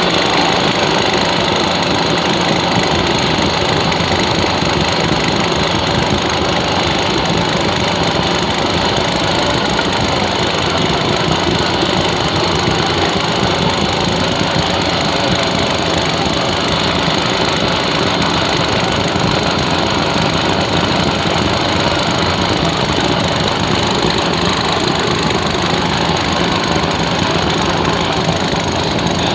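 A small engine running steadily at an even speed, with no pauses or changes in pitch.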